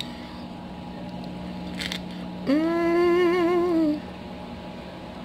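A woman humming with her mouth full while chewing a spring roll: one held note about a second and a half long, its pitch wavering slightly, about halfway through.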